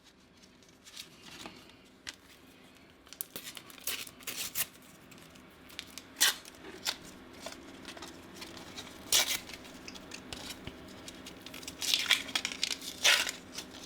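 Panini sticker packets and stickers being handled: paper tearing and crinkling with scattered short crackles, louder in a few bursts later on.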